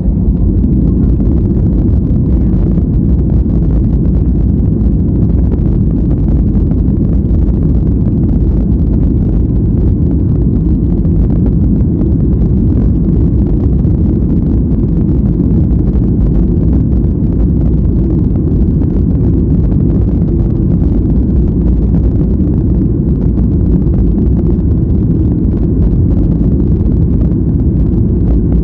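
Loud, steady cabin noise of a Boeing 737-700, heard from a seat behind the wing: the CFM56-7B engines at high thrust with a deep rumble, typical of the takeoff roll.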